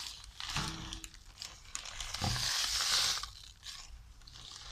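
Thin clear plastic bag crinkling and rustling as it is handled, in uneven spells with a few small clicks, loudest about three seconds in.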